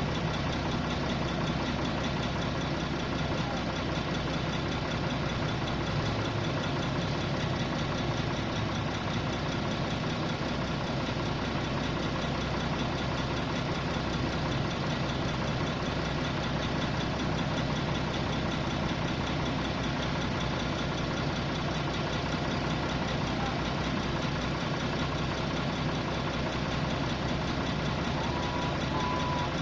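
Engine of a 655 CFM air compressor running steadily at idle.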